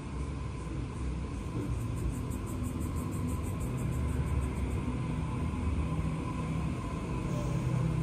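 Sydney Trains Waratah (A-set) electric train running along the platform close by. It makes a low rumble with a steady whine and grows slightly louder.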